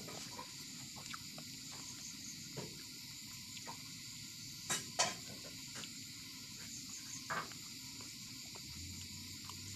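Quiet hand-eating sounds: fingers tearing roti and working semolina on a steel plate, with scattered small clicks, the loudest a pair about five seconds in. A steady high-pitched hiss runs underneath.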